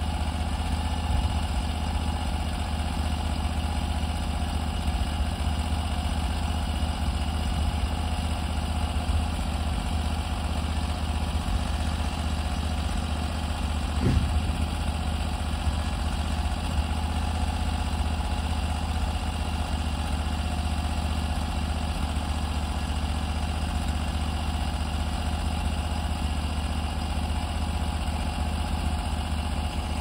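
Norwood HD38 band sawmill's gas engine running steadily as the sawhead travels along a maple log, its band blade sawing off a board. A brief knock about fourteen seconds in.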